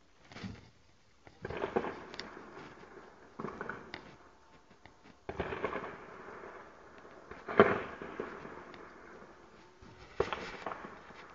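Heavy gunfire and explosions: about six separate sharp bangs or short bursts, each trailing off in a rolling echo. The loudest bang comes about three-quarters of the way through.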